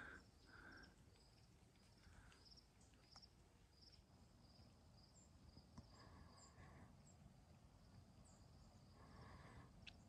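Near silence with the faint, short, evenly repeated chirps of a cricket, about two or three a second, fading out about halfway through.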